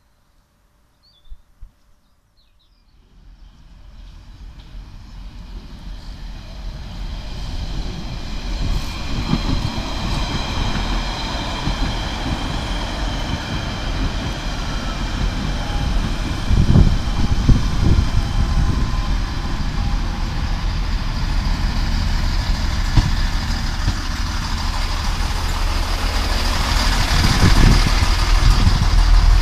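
British Rail Class 165 diesel multiple unit arriving at the platform: diesel engine and wheel rumble growing louder as it approaches and runs alongside, with steady high whining tones over the rumble and a few heavier knocks about halfway through.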